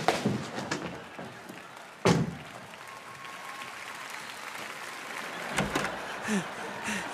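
A door slams shut about two seconds in, over audience applause. Another thud comes about five and a half seconds in.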